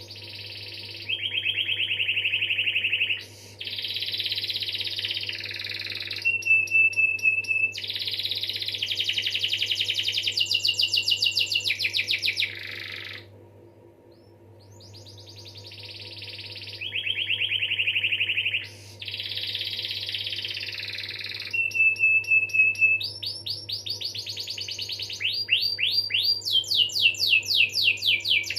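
Canary singing long, rapid rolls and trills of quickly repeated notes in two long song bouts, with a short pause about halfway through.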